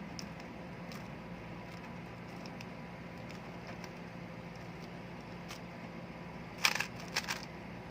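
Plastic clicks and clacks of a Rubik's cube being handled and turned, faint and sparse at first, then a quick run of louder clacks about six and a half seconds in, over a steady background hiss and low hum.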